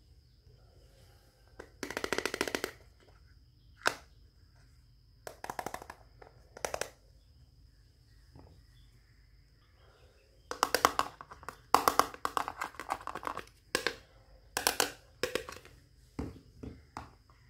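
Small plastic toy kitchen pieces rattling and clattering together as they are handled, in several short bursts of rapid clicks with pauses between.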